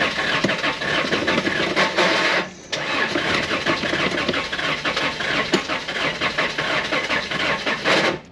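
Isuzu Trooper's carburetted engine cranked on its starter motor without firing. It goes in two long spells with a short break about two and a half seconds in. The engine is getting no spark, and the long cranking drains the battery.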